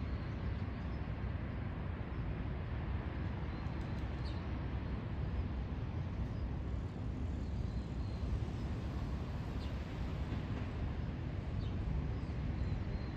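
Steady low outdoor rumble with no clear engine note, with a few faint, short high chirps.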